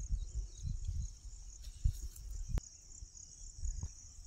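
Steady high-pitched insect chirring, with irregular low thumps and a few sharp clicks, the loudest click about two and a half seconds in.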